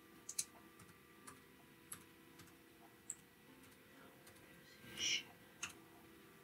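Faint, scattered keystrokes on a Samsung Chromebook 3 laptop keyboard as a short terminal command is typed, with a brief hiss about five seconds in.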